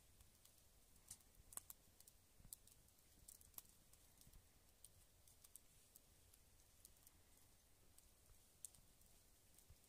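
Faint, sparse crackling and ticking of a wood fire burning in an upright log, with irregular small pops over a near-silent background.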